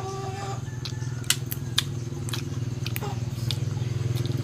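Sharp clicks and snaps of fresh herb sprigs being picked and chewed during a meal. Under them a low engine hum runs steadily and grows louder near the end.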